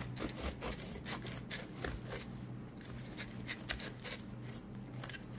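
Knife sawing lengthwise through a crusty French bread loaf: quick, irregular rasping and crackling strokes as the blade cuts the crust.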